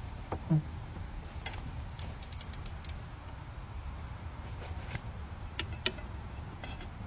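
Scattered light metallic clicks and clinks of a ratchet, impact socket and cheater bar being worked on a truck lug nut, over a steady low rumble, with a brief low sound about half a second in.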